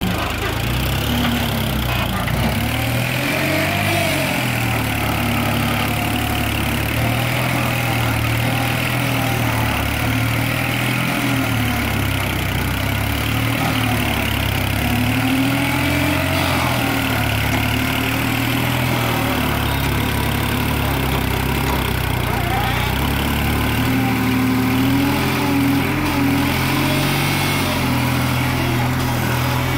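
Diesel tractor engine running steadily under load as its front-end loader digs into soil, the engine note rising and falling a little as the bucket works.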